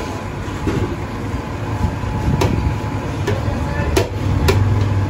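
Busy street-food stall ambience: a steady low rumble with background voices, and several sharp knocks or clanks, the clearest about two and a half, four and four and a half seconds in.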